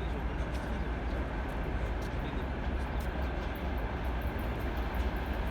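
Freight train hauled by a VL80S electric locomotive running along the track: a steady low rumble with faint ticking, no horn.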